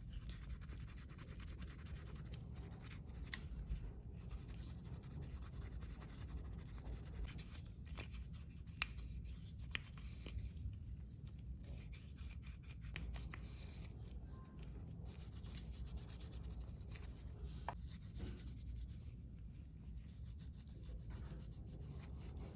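Hand scrubbing on a bronze censer: a continuous scratchy rubbing with a few sharp ticks, over a steady low hum.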